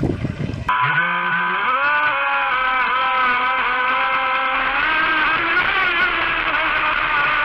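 Wind and water noise that cuts off suddenly under a second in, replaced by background rock music led by a distorted electric guitar.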